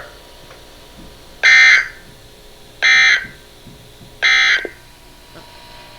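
Emergency Alert System SAME End of Message code: three short bursts of digital data tones, each under half a second long and about a second and a half apart, marking the end of the weather-radio alert.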